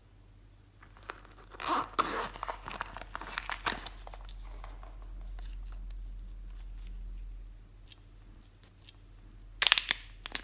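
Plastic crinkling and crackling as a zip-lock bag filled with blue slime is handled. A dense burst of sharp crackles near the end comes as the bag's press seal is pulled open.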